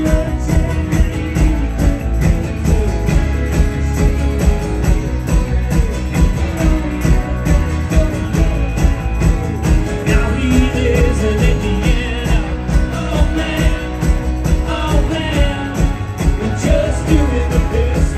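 Live rock band playing electric guitars and bass over a steady beat, with singing that is clearest in the second half.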